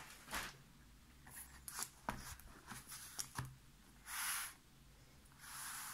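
Small taped cardboard boxes handled and slid across a wooden desk: a few light knocks and taps, then two short scraping swishes, one about four seconds in and one near the end.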